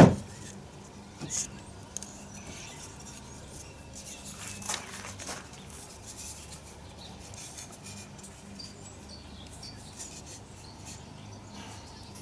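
Steam-bent wooden strips and a plywood rib being handled on a table: a sharp knock at the start, a lighter clack about a second in, then wood rubbing and scraping around five seconds in, with a few faint taps over a faint steady low hum.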